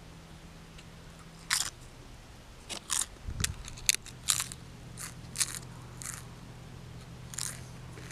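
Corn chips being bitten and chewed: a dozen or so sharp, irregular crunches, most of them bunched in the middle.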